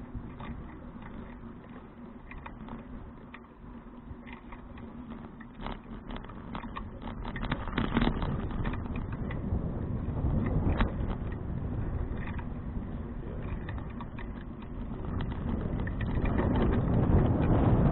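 A 2012 Fuji touring bicycle being ridden: tyre and road rumble with many scattered clicks and rattles. Wind on the microphone builds up over the last couple of seconds.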